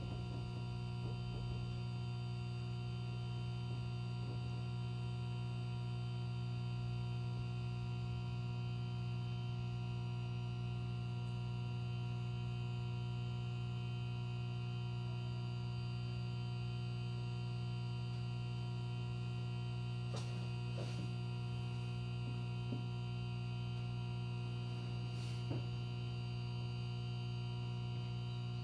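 Steady electrical hum from a 103 series 1500 subseries electric train's onboard equipment while the train stands at a station, with a few faint clicks about two-thirds of the way through and near the end.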